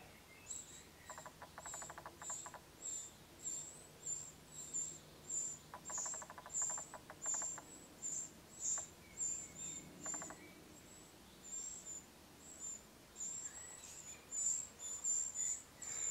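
Eurasian wren nestlings begging to be fed: a run of short, very high, thin peeps, about two a second. Three brief bursts of rapid lower ticking cut in, about a second, six seconds and ten seconds in.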